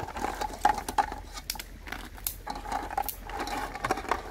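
Small clicks and knocks of cabbage leaves and snail shells being handled in a metal cooking pot, scattered irregularly.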